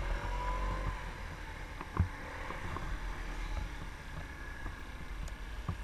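Small motorcycle's engine running at low speed, with a steady low rumble of wind on the helmet-camera microphone and a single sharp click about two seconds in.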